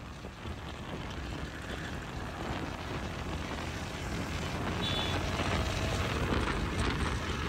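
Motorcycle engine running under way, with wind rushing over the microphone, getting gradually louder.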